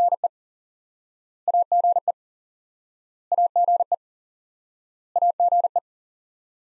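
Morse code beeps in one steady mid-pitched tone spelling AGE (A, G, E: dit-dah, dah-dah-dit, dit) at 40 words per minute. The word is sent as quick groups about every two seconds, with silence between.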